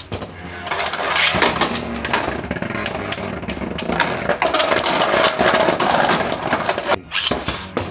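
Beyblade spinning tops whirring and clattering against each other and the plastic stadium wall, with many sharp clicks of collisions, in a dense, steady rasp that drops off briefly near the end.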